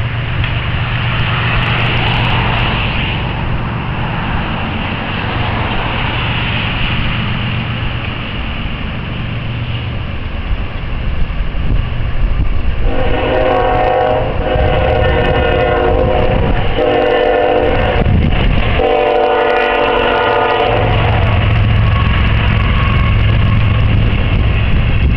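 Union Pacific diesel locomotives approaching a grade crossing, their engines a steady low rumble. About halfway in, the locomotive's air horn sounds several chord blasts, the last one long, which is the warning for the crossing. Then the engines and freight cars roll by.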